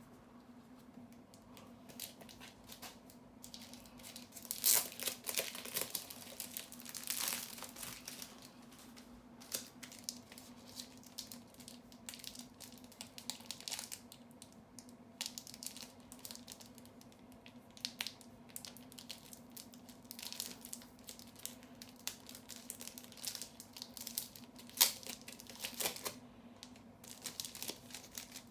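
Crinkling and tearing of a Magic: The Gathering draft booster pack's foil wrapper, with cards and plastic card sleeves being handled. The rustles and snaps come irregularly, loudest about five seconds in, about seven seconds in and near the end, over a faint steady hum.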